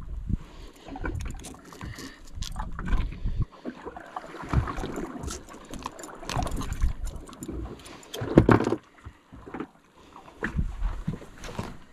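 Wind buffeting the microphone in uneven gusts, with scattered clicks and knocks from metal pliers working a hook out of a grouper's mouth. One louder knock and rustle comes about eight and a half seconds in.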